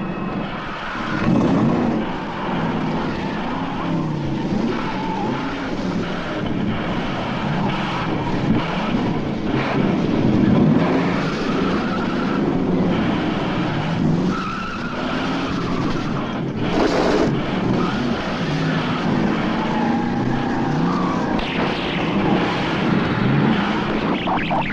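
Car engine revving hard and changing pitch as the car races along, with tyres squealing at times. A short burst of noise cuts in about two-thirds of the way through.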